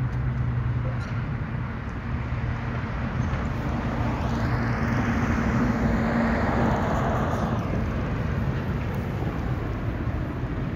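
Diesel locomotive of a J26CW-AC-hauled passenger train, running with a steady low drone as the train approaches slowly. A swell of rushing noise rises and fades in the middle.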